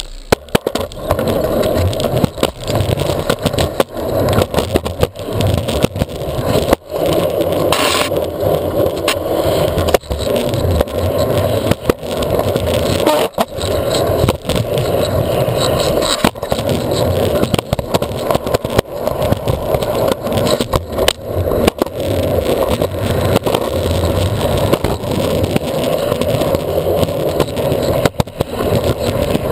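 Skateboard wheels rolling on concrete, picked up through a camera mounted on the underside of the deck. A steady rolling rumble runs throughout, broken by frequent sharp clacks as the wheels cross seams and cracks in the pavement.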